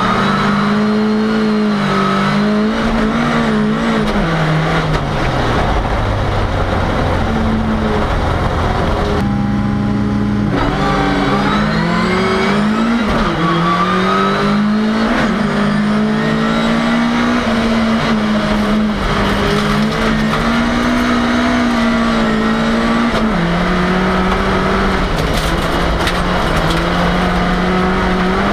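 Ford Cortina race car's engine heard from inside the car, running hard through the gears. The revs fall and climb several times, with a short break in the engine note about a third of the way through.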